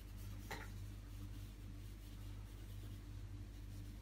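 Faint scratchy swishing of a 2-inch blending brush working acrylic paint across a canvas, with a brief faint click about half a second in. A steady low electrical hum runs underneath.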